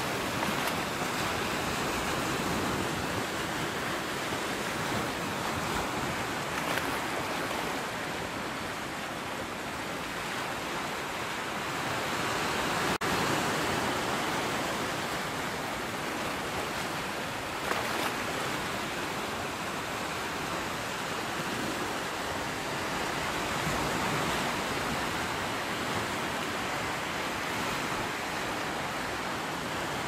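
Sea surf washing steadily on the shore, a continuous rush of waves that swells and eases slowly.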